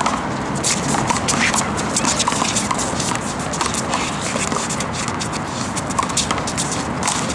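One-wall handball rally: the small rubber ball smacks sharply and irregularly off hands, the concrete wall and the ground, with players' sneakers scuffing on the concrete.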